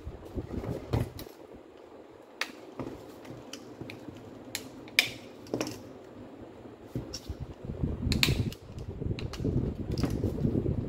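Makita M8700 rotary hammer being handled and taken apart by gloved hands: scattered sharp clicks and clinks of its parts over rubbing and scraping against the housing, the rubbing louder over the last few seconds.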